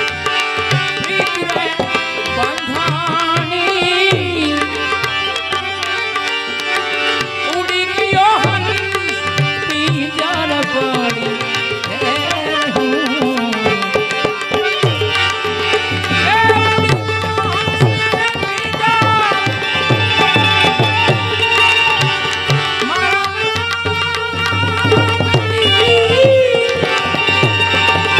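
Indian devotional music: tabla keeping a steady rhythm under a sustained drone, with an ornamented, gliding melody line above it.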